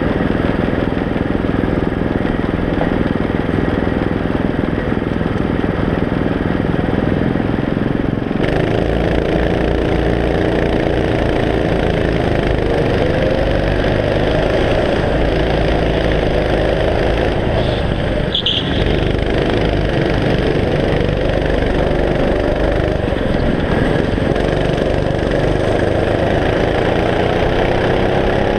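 Go-kart engine heard from on board. It runs low and steady at first; from about a third of the way in its pitch rises and falls as the kart speeds up and slows for corners, and it climbs again near the end. A brief high squeak comes just past the middle.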